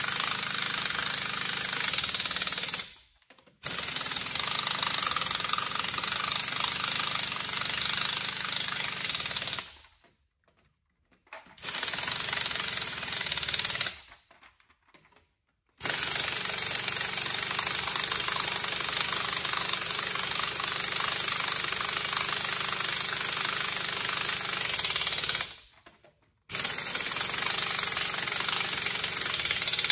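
Pneumatic impact wrench hammering on the lug nuts of a heavy truck's front wheel. It runs in long bursts of several seconds, cut off sharply four times by short pauses.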